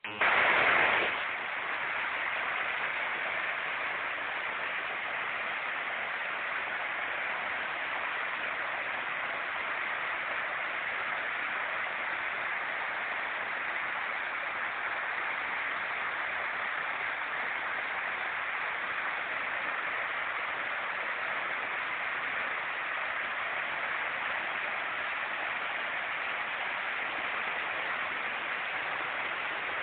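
Storm runoff rushing out of a concrete culvert and over the beach into the sea, a steady rush of water, louder for about the first second.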